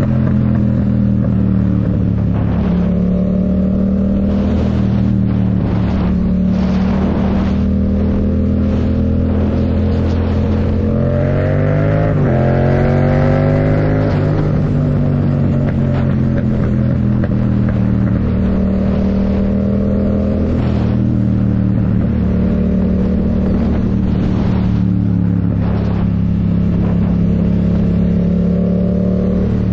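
Yamaha MT-07's parallel-twin engine running through a MIVV Delta Race full exhaust while riding at a mostly steady pace. Midway the revs climb for a few seconds, then drop back and settle.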